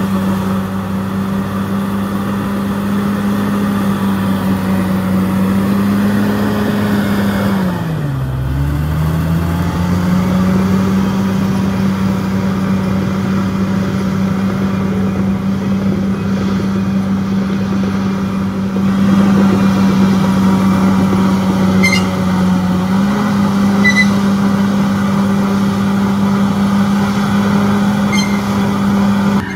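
Crawler bulldozer's diesel engine running steadily under load. About eight seconds in it bogs down sharply and recovers, as when the blade takes a heavy bite, with a smaller dip later on. A few faint short squeaks come near the end.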